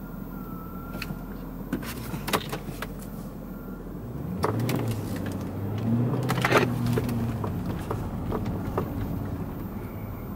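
Inside the cabin of a 2009 Mercedes-Benz S63 AMG with its 6.2-litre V8 moving off at low speed. A low engine hum swells about four seconds in and holds for a few seconds, with scattered clicks and knocks from the cabin.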